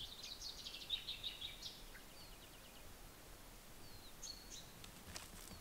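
A small songbird sings a quick, high twittering phrase for about two seconds, followed by a few faint chirps and one short whistled note, over faint steady background noise.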